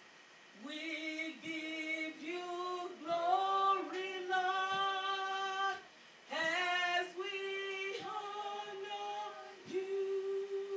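A woman singing unaccompanied into a microphone, in long held notes, in two phrases with a brief break about six seconds in.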